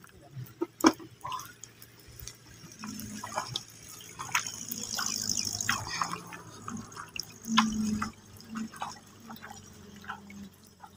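Bare feet splashing through shallow muddy water in irregular steps, with drips and trickles.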